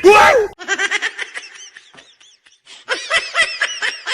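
People laughing: a loud burst at the start, then bouts of giggling with a short pause in the middle.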